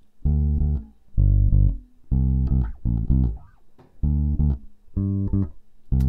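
Recorded electric bass line played back on its own: a run of plucked notes in short groups, separated by brief gaps.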